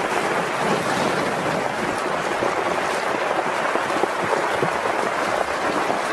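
Muddy floodwater rushing steadily across a highway's asphalt in a broad, shallow sheet carrying mud and rock debris: a flash-flood debris flow over the road.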